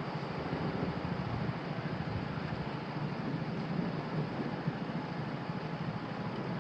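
Steady rumble and hiss of road traffic going by at the level crossing, with no signal bell or horn sounding.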